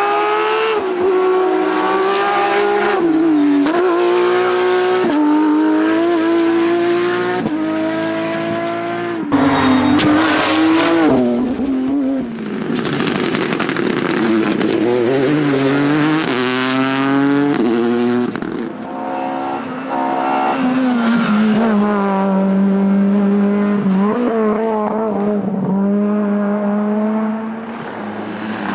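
Rally car engines at high revs, one car after another: each engine climbs in pitch and then drops sharply at every gear change as the car passes. The loudest moment comes with a sudden jump in level about nine seconds in.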